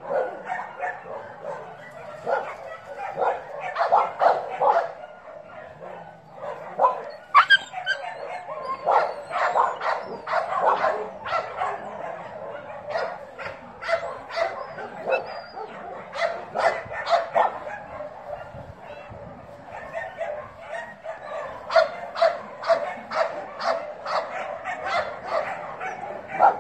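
Dog barking and yipping over and over in quick runs, with a couple of short quieter breaks.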